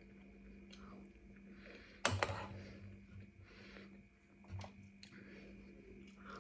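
Close-up mouth sounds of someone chewing food during a mukbang, with a sharper knock or clatter about two seconds in and a smaller one past the middle.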